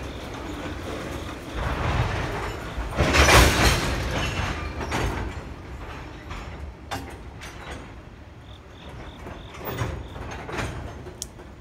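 Freight train tank cars rolling past: steel wheels rumbling on the rails with scattered clanks and knocks, swelling loudest about three seconds in, then easing off.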